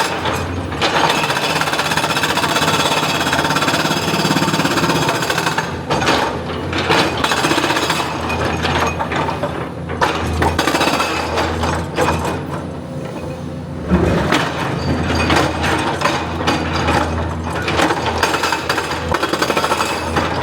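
Excavator at work on rock: its diesel engine runs under load beneath a rapid, continuous clatter of steel striking rock. The clatter eases off for a couple of seconds about two-thirds of the way through, then resumes with a sharp bang.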